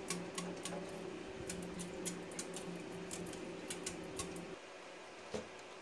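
Mineral spirits sloshing inside a Powerhorse trash pump's metal fuel tank as it is tilted and rocked by hand, with many small sharp clicks and taps, to loosen rusty sludge from the tank walls.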